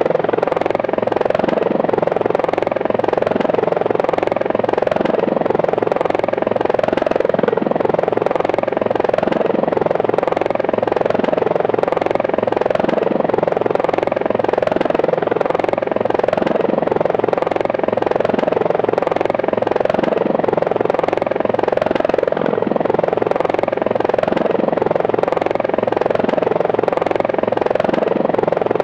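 Helicopter running steadily in flight: the engine and rotor drone with a fast, even beat of the blades.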